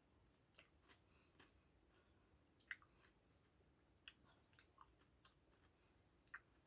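Near silence with a few faint, sparse clicks of someone quietly chewing a hand-cooked crisp, the clearest about two and a half seconds in and near the end.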